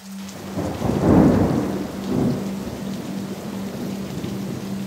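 Thunder rumbling over steady rain, swelling about a second in and again near two seconds, then fading into a long rolling rumble. A low tone hums underneath.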